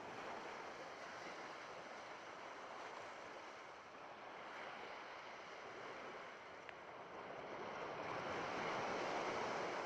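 Sea surf washing in a steady rush, swelling louder near the end.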